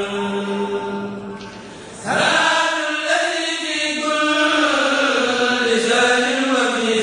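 Intro music of chanting voices over a held drone. The sound thins out just before two seconds in, then the chant comes back in loudly with wavering, gliding pitches.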